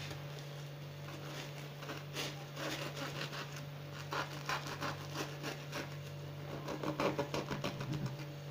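Knife sawing through the crust of a round of matlouh (Algerian flour flatbread), a series of short rasping strokes.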